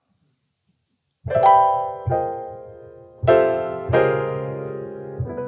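Slow piano chords: five struck chords, each left to ring and fade, the first about a second in after near silence.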